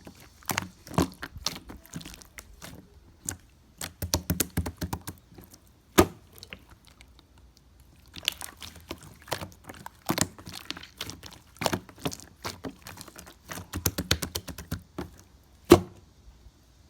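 Irregular clusters of short clicks and knocks, some with a dull thump, and two single sharper knocks, about six seconds in and near the end.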